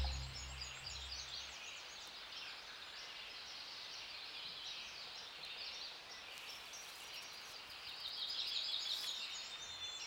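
Small birds chirping and calling over a faint outdoor hiss, with a quick repeated chirping phrase growing louder near the end; the low notes of a music bed fade out in the first second or so.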